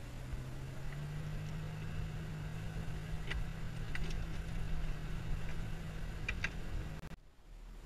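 Engine and drivetrain of a 4x4 heard from inside the cabin while driving over desert sand, a steady low hum. A few short light ticks come in the second half, and the sound cuts out abruptly near the end.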